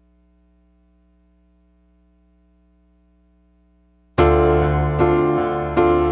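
Opening of a rock song: a faint steady held drone, then about four seconds in a loud keyboard enters, striking three chords about 0.8 s apart.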